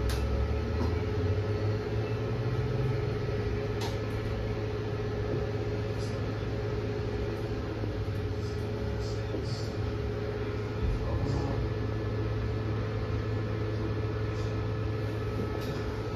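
Cabin sound aboard a 2023 New Flyer XE40 electric bus under way: a steady hum with a constant whine and low rumble, and a few light rattles and ticks.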